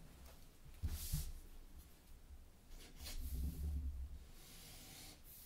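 Felt-tip marker drawing strokes on paper, a faint scratchy hiss in two spells, about a second in and again from about three seconds to four and a half, with dull low bumps from the hand and paper on the desk.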